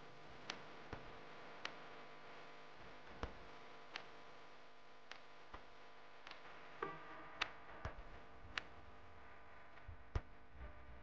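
Faint room hum in a large hall with about a dozen short, sharp clicks and taps at irregular spacing, the loudest near the end.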